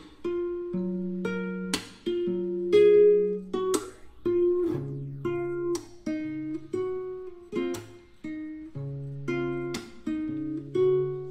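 Background music: a plucked acoustic guitar playing chords and a melody, each strum ringing out before the next.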